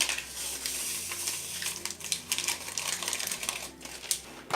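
Granulated sugar and vanilla sugar poured onto beaten eggs in a bowl: a grainy hiss with scattered light ticks.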